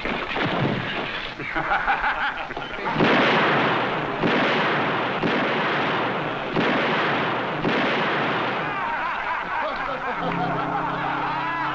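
Rough noisy commotion in a string of sudden loud surges about a second apart, then sustained music chords come in near the end.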